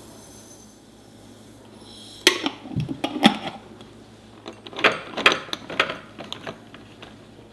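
Glass jars and their lids being handled: a string of sharp clinks and taps as a large glass jar of seeds is set down and capped and a small glass spice jar is fitted back into a rotating spice rack. Near the start there is only a faint hiss while seeds are poured from the large jar into the small one.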